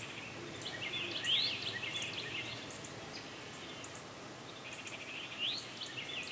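A songbird singing two phrases of quick rising whistles and trills, one about a second in and another near the end, over steady outdoor background noise.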